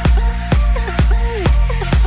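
Electronic dance music with a steady kick drum about twice a second and a synth lead melody that slides between notes.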